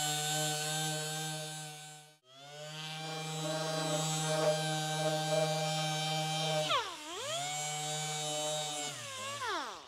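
Small air-powered orbital sander running at a steady speed as it sands paint and bare metal, feathering the paint edges around the weld repair. It stops briefly about two seconds in, then restarts, dips in speed once as it is pressed or throttled, and spins down to a stop near the end.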